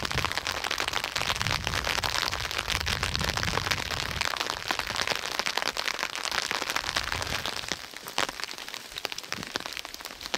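Rain falling steadily: a dense hiss of many small drop hits, a little quieter near the end.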